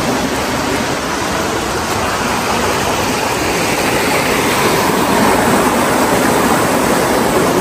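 Steady rushing of flowing water, an even loud noise without breaks.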